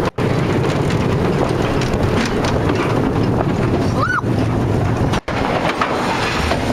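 Wind rushing over the microphone and the rumble of a bobsled roller coaster car running along its trough at speed. The sound drops out for an instant twice.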